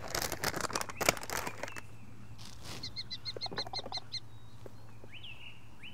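Light handling clicks and rustles in the first two seconds, then a bird calling: a quick run of about eight short high notes, and near the end two rising call notes with a brief held whistle.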